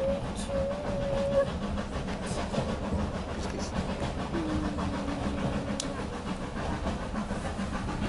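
Steady rumble of a steam-hauled railway carriage running along the track, heard from inside the carriage, with two brief faint hummed voice tones, one in the first second or so and one falling tone around the middle.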